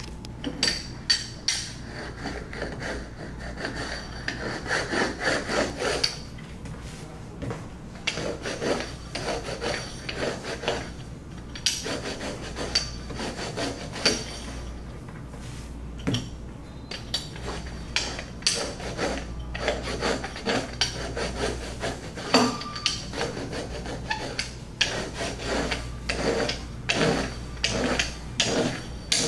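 Hands working a ball of bread dough on a wooden tabletop, then a metal rolling pin rolled back and forth over the dough. Repeated rubbing strokes come with many sharp knocks of the pin against the table.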